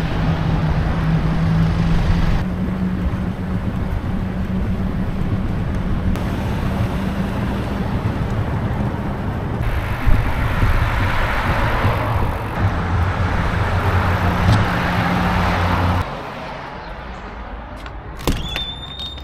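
Road traffic on a city street with a steady low hum, heard while riding. About three seconds from the end it drops quieter, then there is a sharp click and a short high tone as a shop door is pushed open.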